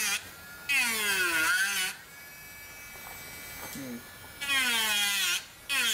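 Dremel Stylo pen-style rotary tool carving into a wooden bowl rim: the motor's whine sags in pitch and climbs back each time the bit bites into the wood, three cuts in all. For a couple of seconds in the middle it spins freely at a steady, quieter pitch.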